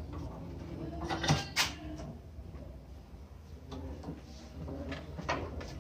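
Sharp metal knocks and clinks of hand tools working on a steering rack clamped in a bench vise while new steering rack bushings are fitted: two knocks close together about a second in, another near the end.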